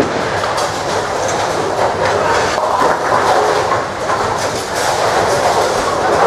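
Ten-pin bowling alley din: bowling balls rolling down wooden lanes in a steady rumble, with scattered clatters of pins being knocked down.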